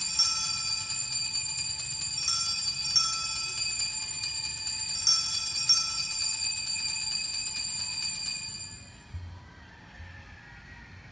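Altar bells rung for the elevation of the chalice at the consecration: a cluster of small bells shaken twice about every three seconds, their ringing carrying on steadily between shakes and dying away about eight and a half seconds in.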